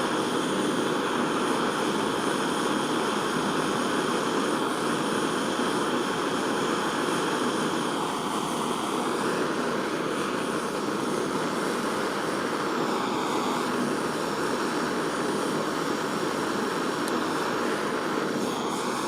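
Jeweller's gas soldering torch flame blowing steadily on a silver setting, heating the seam so the silver solder flows.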